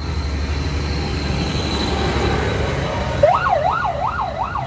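Tractor engines run with a steady low rumble as they pass. About three seconds in, an emergency-vehicle siren starts up with a fast yelping rise and fall, about three cycles a second, and keeps going.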